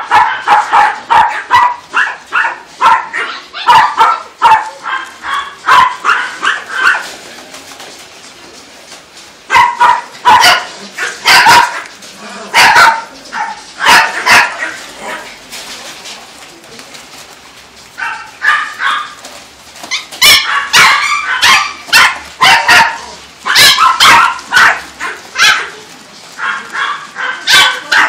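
Caged shelter dogs barking in rapid, overlapping volleys, with two short lulls between the bursts.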